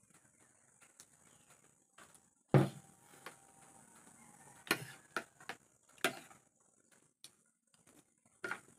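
A metal spoon clinking and scraping on a ceramic plate as rice is mixed and scooped, a handful of separate sharp clicks. The loudest is a knock with a low thud about two and a half seconds in, as a cup is set down on the table.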